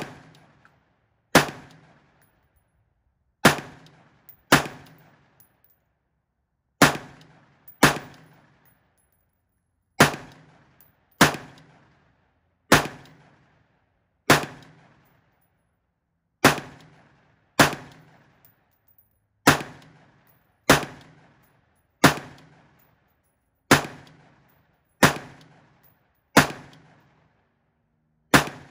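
LMT MRP external-piston 16-inch rifle fired semi-automatic: about eighteen single gunshots at a steady pace, one every one to two seconds, each followed by a short echo.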